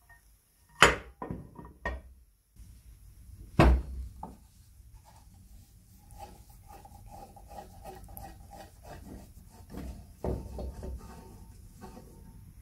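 Screwdriver turning a screw in the cast-iron base plate of a Crown crepe iron: a few sharp metal knocks in the first four seconds, then a long run of small clicks and scraping as the screw turns, with a faint squeak, and another knock about ten seconds in.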